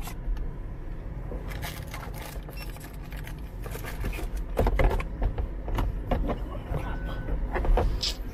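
Small clicks, taps and rustles of a plastic payment card and card wallet being handled, over the low steady hum of the car idling, heard from inside the cabin. A few louder knocks come in the middle and near the end, and there is one short high beep shortly before the end.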